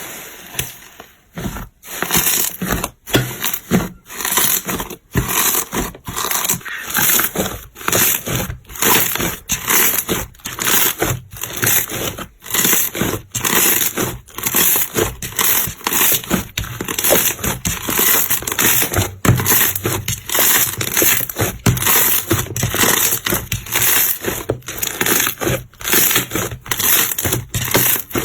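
Slime being squeezed and pressed by hand, giving a rapid series of crackly, squishy pops about twice a second.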